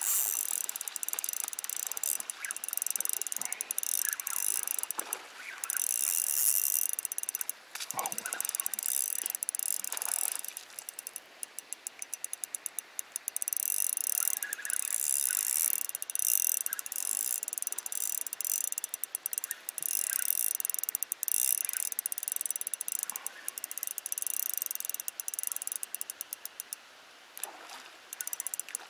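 Fishing reel being cranked to retrieve a lure: fast, fine clicking from the reel in spells, with short pauses between them.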